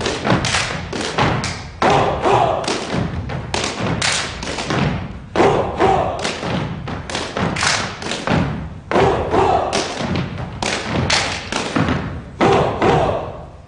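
A group of gumboot dancers stomping and slapping their rubber gumboots in a fast, rhythmic pattern, with heavy accented stamps landing together every second or two.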